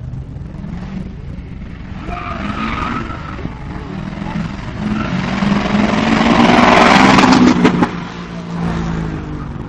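Subaru Impreza's flat-four engine revving hard as the car accelerates through a cone course toward and past, with tyre noise, and the sound loudest about seven seconds in. Just before eight seconds the engine note drops suddenly as the driver lifts off.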